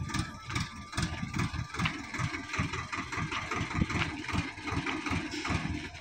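A Swaraj farm tractor's diesel engine running as it tows a loaded trailer over a dirt track, with rapid uneven knocking and rattling from the tractor and trailer.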